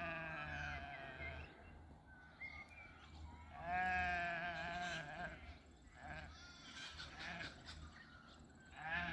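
Ewe and lamb bleating as the ewe searches for her lamb: long wavering bleats, the loudest about four seconds in and another near the end, with fainter calls between.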